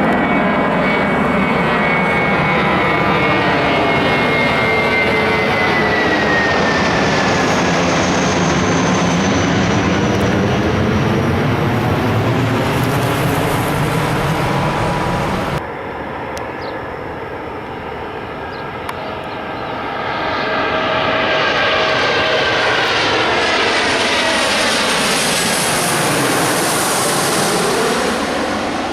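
Jet airliner passing close by, its engine noise loud with a high whine that falls in pitch as it goes past. About halfway through the sound cuts abruptly to a second jet airliner that grows louder and sweeps past.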